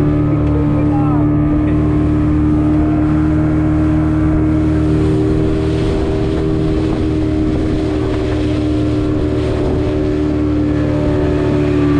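Speedboat engine running under way at a steady, unchanging pitch.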